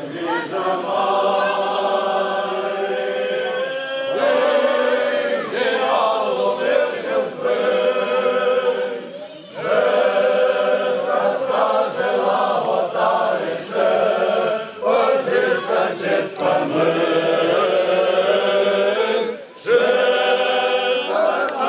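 A choir of voices singing slow, long-held phrases, broken by a few short pauses.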